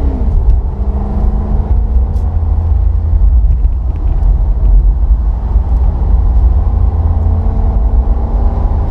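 Chevrolet SS's LS3 V8, fitted with a cold air intake and with its secondary cats deleted, under way on the road. Its revs drop just after the start, then hold steady with a deep low engine note.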